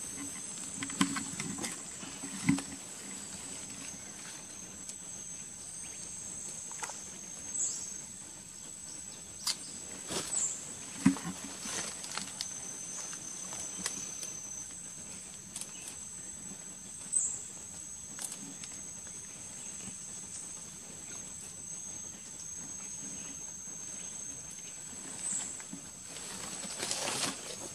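Forest insects keep up a steady, high-pitched two-note drone. Over it come irregular rustles, snaps and knocks of someone pushing on foot through swampy undergrowth and leaf litter, with the loudest knocks a few times in short clusters.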